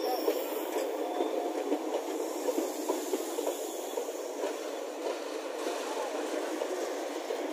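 Indian Railways passenger coaches of the Sadbhavna Express rolling past alongside the platform: a steady rattle and clatter of wheels and bogies on the track, with many small irregular clicks.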